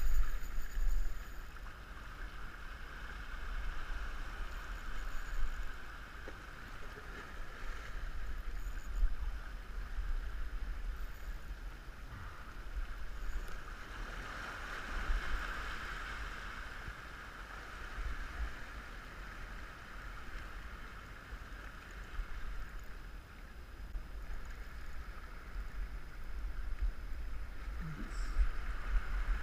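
Wind buffeting an action camera's microphone in uneven gusts, over a steady wash of small waves breaking on a rocky shore.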